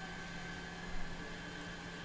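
Steady hiss with a constant low hum and a faint high steady tone, broken about halfway through by a single short dull thump.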